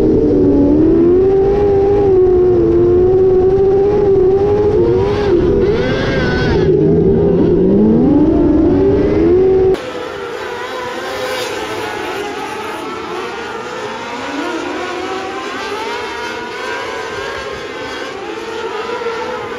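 Onboard sound of a dirt-track race car's engine at high revs, its pitch wavering up and down as the throttle comes and goes through the turns, with one deep dip and climb back. About ten seconds in it cuts to a quieter mix of several race cars' engines heard from the stands as they race around the dirt oval.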